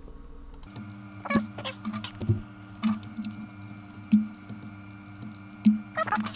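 Computer mouse clicks and keyboard taps, a few sharp clicks, over a faint steady hum.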